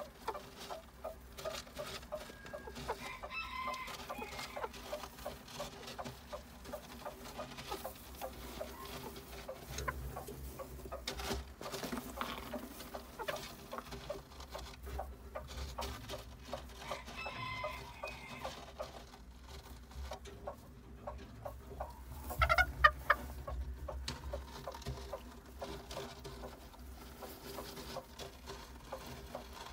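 Shojo chabo (Japanese bantam) hen clucking in short, repeated calls, with one louder call about three-quarters of the way through.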